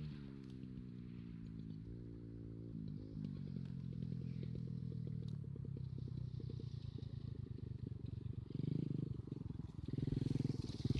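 Small off-road vehicle engine running, its pitch falling at first, rising briefly about two seconds in, then steadier, with two louder rises near the end.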